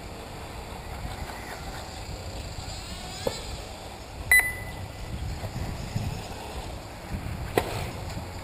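1/8-scale electric RC off-road buggies racing on a dirt track, their motors whining in faint rising sweeps, with a couple of sharp knocks. About four seconds in, a short loud electronic beep.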